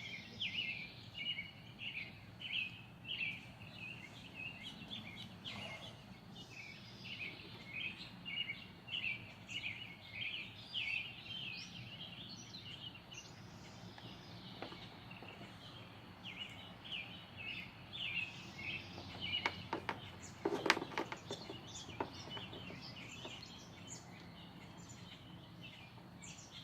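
Small birds chirping rapidly and continuously. About two-thirds of the way through comes a short cluster of sharp clicks and knocks from crimping a butt connector onto the headlight wiring.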